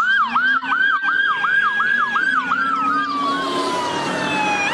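Police car sirens: one in a fast yelp, rising sweeps about three a second, which fades out about three seconds in, and a second holding a steady wail that slowly falls in pitch over the last couple of seconds and swoops back up at the end.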